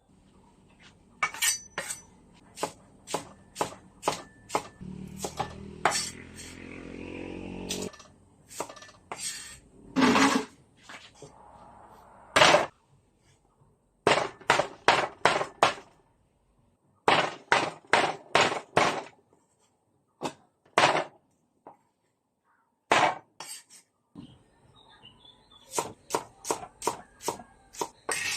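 Cookware and utensils knocking and clinking against pots and dishes, often in quick runs of several strikes. Between them comes a few seconds of liquid being poured into a container, rising in pitch as it fills.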